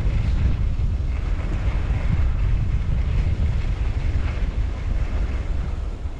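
Wind buffeting the microphone: a steady, loud low rumble with a hiss above it.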